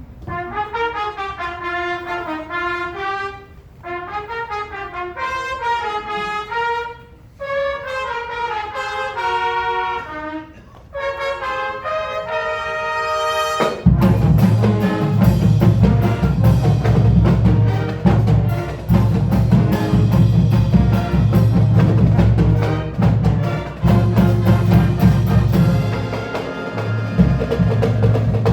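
Marching band music. Brass plays melodic phrases, then about halfway through the full band comes in much louder with heavy low drums under the brass.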